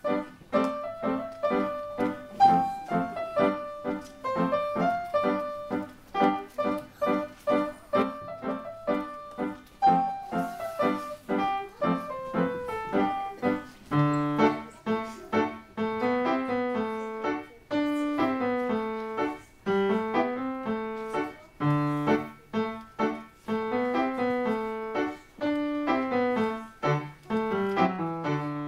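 Piano played by a child: a simple tune of evenly struck single notes, with a lower left-hand part joining about halfway through.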